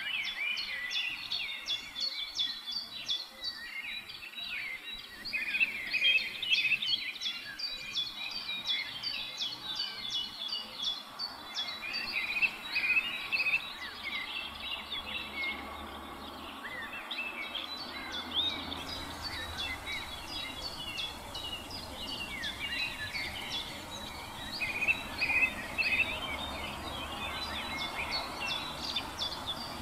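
A dense chorus of many small birds chirping and calling at once, in quick, overlapping short notes.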